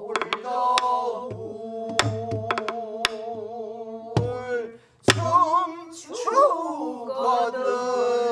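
A woman singing a pansori line in long, wavering held notes, accompanied by single strokes of a stick on a buk barrel drum.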